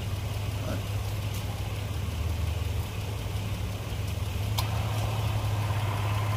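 Car engine idling steadily, with a single sharp click about four and a half seconds in.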